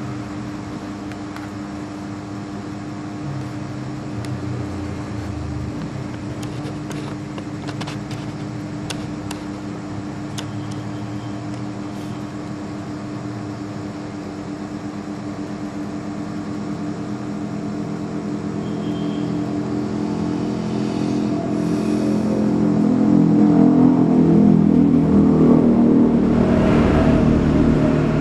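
Background hum of a motor vehicle engine running steadily, growing louder in the last third.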